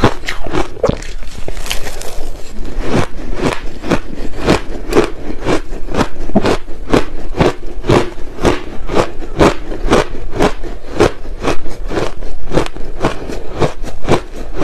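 A mouthful of purple crushed ice being chewed close to the microphone: loud, crisp crunches in a steady rhythm of about three a second.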